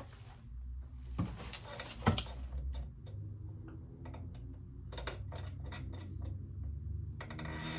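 Metal clinks and taps of an open-end wrench on a motorcycle brake caliper's bleeder valve as it is turned shut: two sharp clinks about a second apart, then a cluster of lighter taps later on, over a low steady hum.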